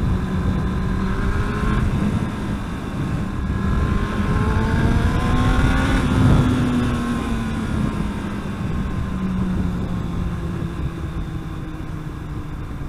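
Yamaha R1 inline-four engine pulling under load while riding. The revs climb from about four seconds in to a peak around six seconds, then fall away slowly.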